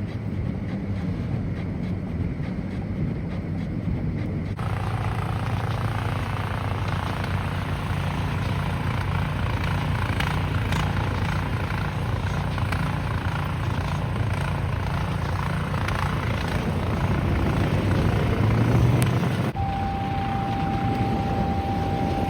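Steady low engine rumble of a large vehicle or traffic. About twenty seconds in, the sound changes abruptly and a steady high tone joins the hum.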